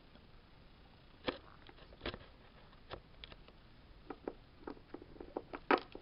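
Small plastic toy figurines handled and set down on a hard surface: scattered light clicks and taps, coming more often near the end, the loudest just before it ends.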